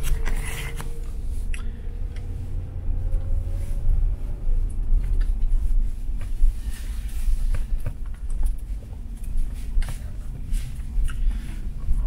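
Steady low road and engine rumble of a car being driven, heard from inside the cabin, with a few scattered faint clicks and knocks.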